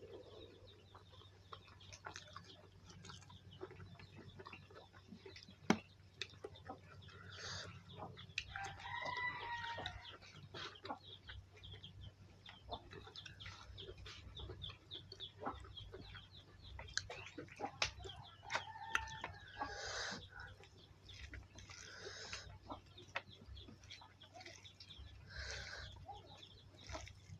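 Domestic chickens clucking, with a rooster crowing a couple of times, over small clicks and smacks of eating.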